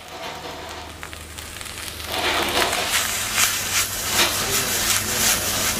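Rice and vegetables sizzling in a hot wok over a gas burner, quiet at first. About two seconds in it grows louder as the wok is tossed and stirred, with a quick run of scraping strokes.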